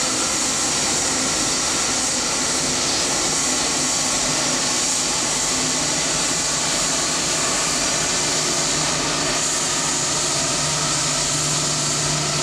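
Boeing 757-200's twin turbofan engines running at taxi thrust as the airliner rolls past, a steady high rushing whine. A low hum in the engine sound grows stronger near the end.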